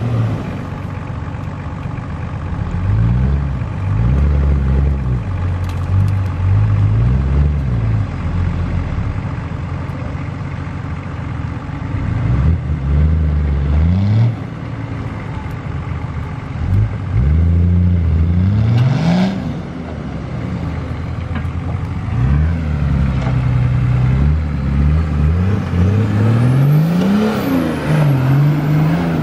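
Four-wheel-drive SUV engine revving up and falling back in repeated surges as it climbs a steep dirt bank under load. A short rush of noise comes about two-thirds of the way through.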